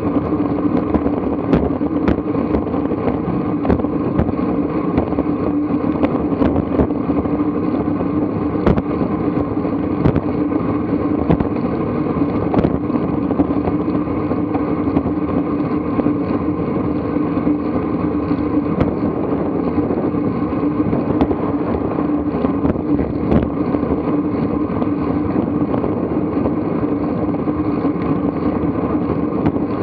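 Steady rolling noise of a bicycle riding on asphalt: a continuous drone from the tyres and bike, with wind on the microphone and scattered light clicks and rattles.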